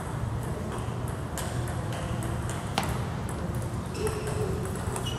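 Table tennis ball hitting paddles and the table during a rally: a string of sharp clicks, the loudest about three seconds in, over a steady low hum.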